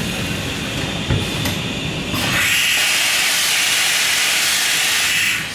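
Kutrite CNC router letting out a loud, steady hiss of air as its automatic tool touch-off cycle runs. The hiss starts about two seconds in over the machine's running noise and cuts off suddenly near the end. There is a click about a second in.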